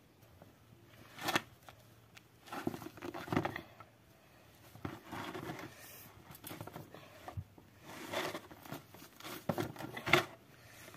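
Feathers being torn out of a freshly slaughtered chicken by hand, in short irregular rips with pauses between them.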